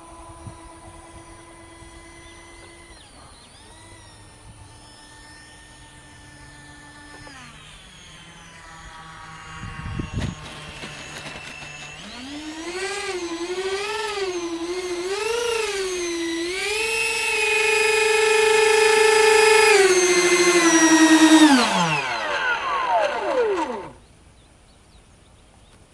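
Twin 64 mm electric ducted fans of a Dynam A-10 RC jet whining at part throttle, then throttled back about seven seconds in, with a single thump near ten seconds. From about twelve seconds the fans whine loudly again, pitch rising and wavering with throttle blips, held high, then spooling down and stopping near the end.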